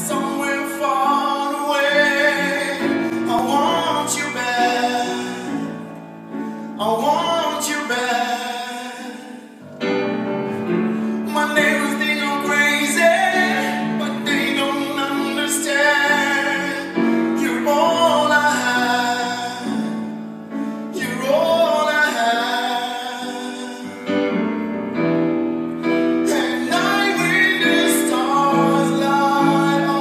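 A man singing a melody with long held notes into a stage microphone, accompanied by a grand piano.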